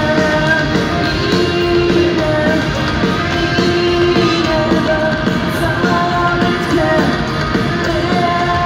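Live punk rock band playing through a stadium PA, heard from the crowd: electric guitars and drums, with a voice singing.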